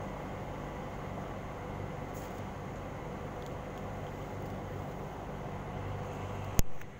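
Steady low hum of background street noise. One sharp click comes near the end.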